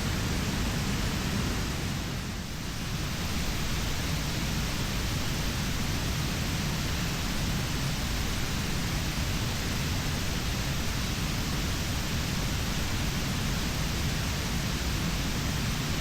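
Steady rushing of a river's flowing water: an even hiss with a brief dip in level about two and a half seconds in.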